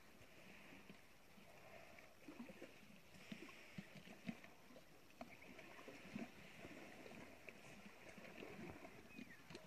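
Near silence: faint outdoor background with a few soft, scattered short sounds.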